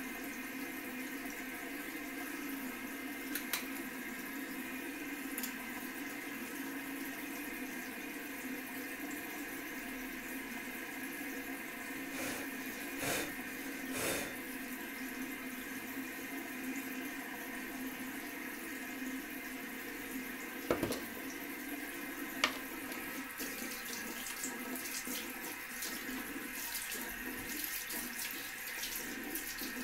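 Water from a bathroom tap running steadily into a sink, with a few brief knocks and clatters at the basin.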